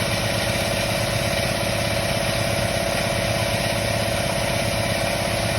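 Air compressor running steadily, a constant mechanical hum with a broad hiss over it.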